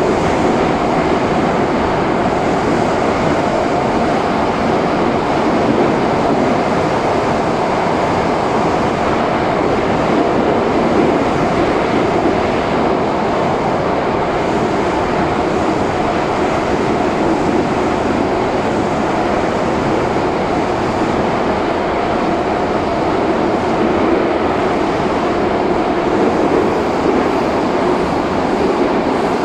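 Moscow metro 81-717.5A subway car running at steady speed through a tunnel, heard from inside the passenger car: a loud, even noise of wheels on rails and the running train.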